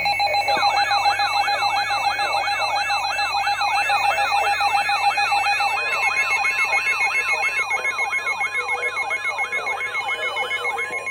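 Emergency alert tones for a severe thunderstorm warning, from several receivers sounding at once. A siren-like warble sweeps up and down about three times a second over steady alert tones and rapid pulsing beeps. About halfway through, one steady tone gives way to another, and the warble stops just before the end.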